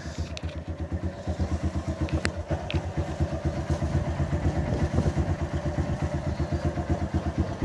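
Honda Titan 150's single-cylinder four-stroke engine idling with an even, fast beat, with a few light clicks over it. This faint ticking is the noise the owner likens to a loose little screw inside the engine, which a mechanic put down to the tappets.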